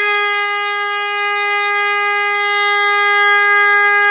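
Air horn blasting one long, loud, steady note at a single unchanging pitch, cutting off suddenly at the end.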